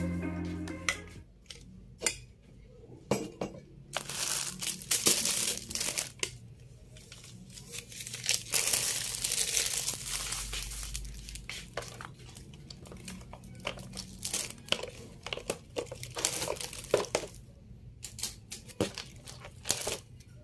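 Objects being handled and moved about on a desk: plastic crinkling and rustling with scattered light clicks and knocks. Background music fades out about a second in.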